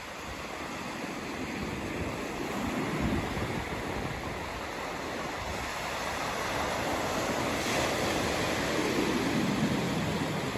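Small ocean waves breaking and washing up a sandy beach: a steady rushing surf that swells gradually louder in the second half.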